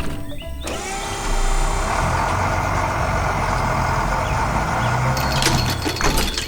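Truck engine running steadily, with a run of sharp crackling and clattering sounds near the end.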